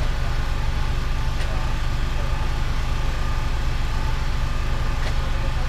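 Mini excavator's diesel engine and hydraulics running steadily with a low, even hum.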